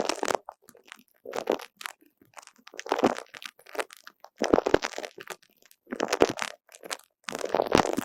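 Sticky, tacky squelches from an uni bouzu spiky squishy toy being squeezed and handled, in short crackly bursts about every second, with longer ones in the middle and near the end.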